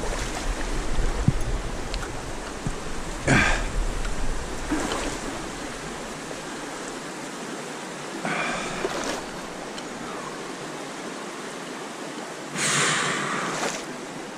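Trout stream running steadily, with a few louder swells of splashing water: about three seconds in, around eight seconds, and a longer one near the end.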